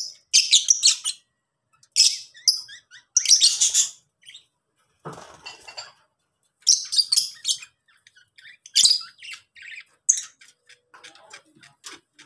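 Lovebirds chattering in shrill, high-pitched bursts, several clusters with short pauses between them, fading to fainter clicking chirps near the end. A brief soft rustle sounds about five seconds in.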